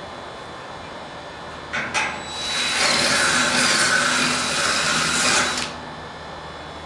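Cordless drill driving a screw up into a metal carport beam: two short taps on the trigger, then about three seconds of steady running before it stops.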